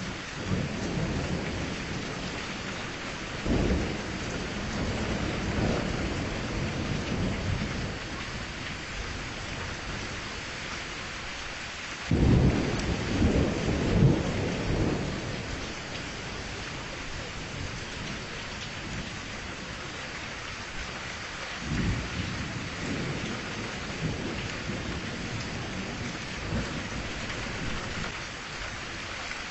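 Steady rain with low rolls of thunder, the loudest about twelve seconds in.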